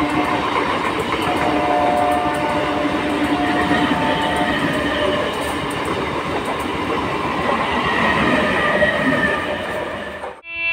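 Passenger train of yellow-and-blue coaches running past at speed: a steady rush of wheels on rail with clickety-clack over the rail joints. The sound cuts off suddenly just before the end.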